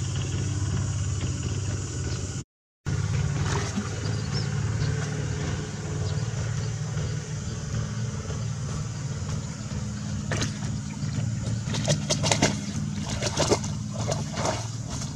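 Steady low engine-like hum throughout, with a run of short splashes and scrabbles late on as a puppy paddles through shallow pond water and climbs out onto the bank.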